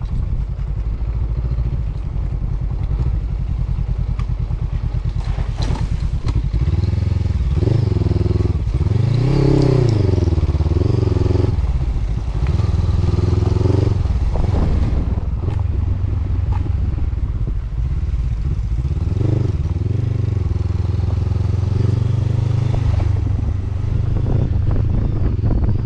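Honda CB500X motorcycle's parallel-twin engine running under way, its pitch rising and falling as the throttle opens and closes, most clearly about a third of the way through and again later, with occasional clatter.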